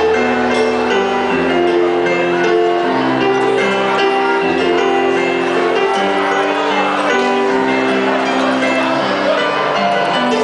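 Yamaha digital piano played live, a slow melody over held chords with notes changing about every second.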